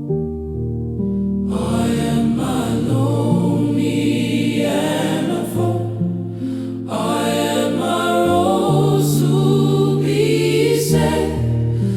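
Gospel music: sustained keyboard chords, then a choir comes in singing about a second and a half in, over the held keyboard harmony.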